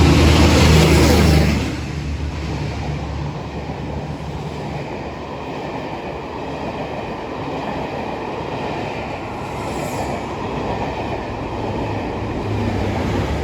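Class 52 diesel-hydraulic locomotive D1015 Western Champion passing at speed, its engine loud for the first couple of seconds, then dropping away as the coaches roll past with a steady rumble and wheel clatter. Near the end a second locomotive's engine hum rises, the class 50 on the rear of the train.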